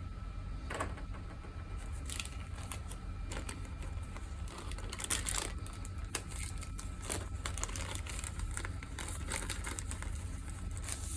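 Irregular clicks and rustles of a cable and small plastic parts being handled, over a steady low hum and a faint steady whine.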